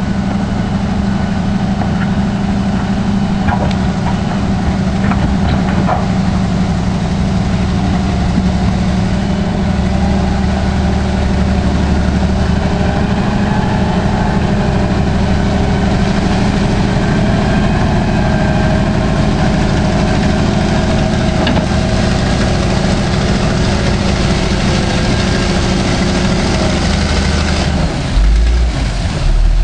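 Caterpillar 988 wheel loader's diesel engine running steadily and loudly as the machine works through shallow water. The sound changes abruptly near the end.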